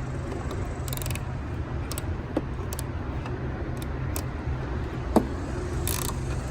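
1/4-inch-drive flex-head ratchet being worked, with short bursts of ratcheting clicks about a second in and near the end and a few single clicks, over a steady low hum.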